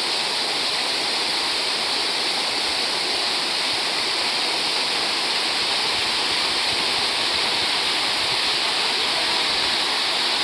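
Valley stream flowing: a steady rush of water that stays even and unbroken throughout.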